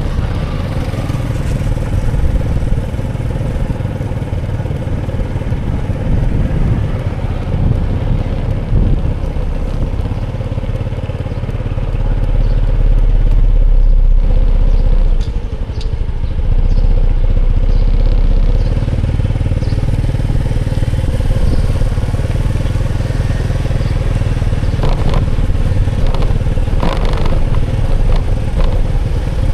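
A motor vehicle running steadily with a heavy low rumble, louder from about halfway through, with a few sharp clatters near the end.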